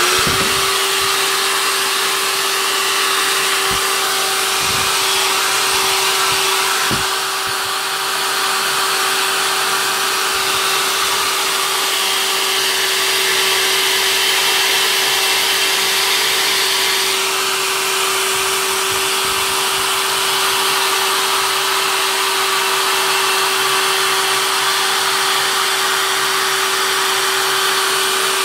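Handheld hair dryer switched on and blowing steadily, a rush of air with a steady motor whine. It is heating and drying the wetted back of a slack canvas so that the fabric shrinks tight.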